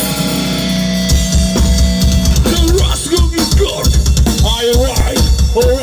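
Live metalcore band playing loud through a small club PA: a sustained held note rings out, then about a second in the full band crashes in with rapid, heavy bass-drum beats under distorted guitars.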